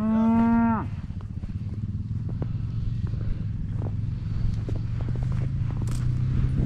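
A cow moos once, a short call under a second long, at the start; then a steady low engine rumble runs on with scattered light knocks.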